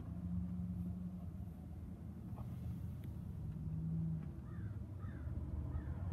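A low, steady rumble inside a parked car's cabin. Near the end come three short, harsh calls about half a second apart.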